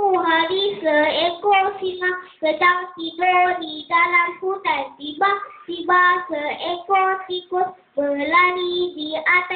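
A young boy singing into a microphone: a child's voice with held, steady notes, in phrases broken by short pauses.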